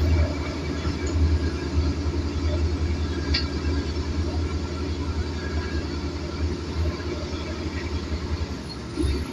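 Diesel engines of bulldozers and excavators at work: a steady, pulsing low rumble that eases a little and picks back up near the end, with one sharp clank about three seconds in.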